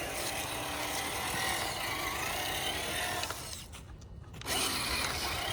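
Traxxas TRX-6 6x6 RC rock crawler's electric motor and geared drivetrain whirring at low throttle, the whine drifting up and down in pitch as it crawls over rocks. The sound drops away for about a second near the end, then picks up again.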